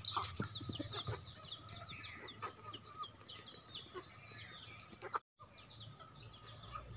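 A flock of chickens, a rooster and hens, clucking and calling while they forage, with many short, high, falling chirps. The sound drops out for a moment a little after five seconds.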